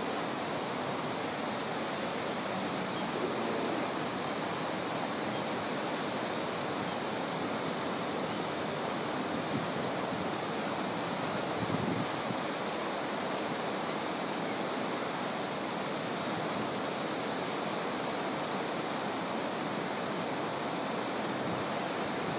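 Steady rushing of a shallow river flowing over a gravel bed, with a couple of faint brief knocks near the middle.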